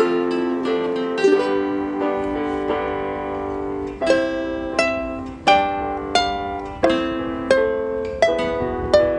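Background music: a gentle plucked-string melody, like ukulele or harp, with notes that ring and fade, struck about every 0.7 s in the second half.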